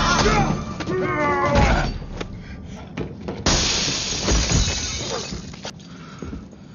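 Glass shattering in a movie fight: a loud crash of breaking glass about three and a half seconds in, trailing off over about a second. Before it, music with a singing voice fades out under a few sharp hits.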